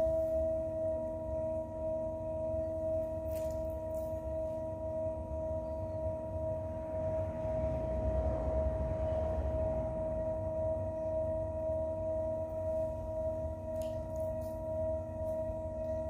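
Electric pottery wheel's motor whining at one steady pitch as the wheel head spins, over a low rumble. From about six to ten seconds in, a wet rubbing of hands and a sponge on the spinning clay pot rises under the whine.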